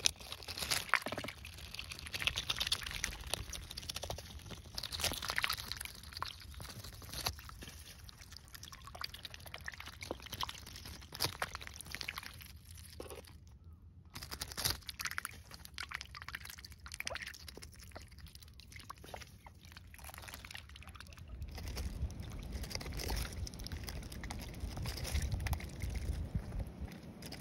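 Call ducks feeding in shallow water: wet dabbling and splashing with sharp bill clicks and crunches as they bite and tear cabbage leaves. A brief gap about halfway, and a low rumble in the last few seconds.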